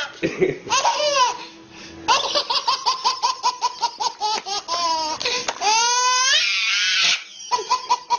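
A baby laughing hysterically: fast runs of short belly-laugh bursts, about four a second, broken around the middle by two long rising-and-falling squeals. A brief pause for breath comes near the end, then the laughing starts again.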